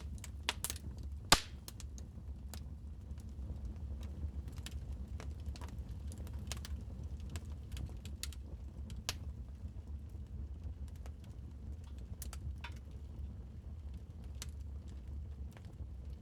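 Wood fire crackling in a fireplace: irregular sharp pops and snaps, the loudest about a second in, over a steady low rumble.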